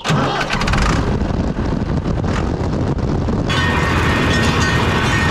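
Ford 7600 tractor's diesel engine running steadily, close to the microphone. About three and a half seconds in the sound turns brighter, with a steady whine added.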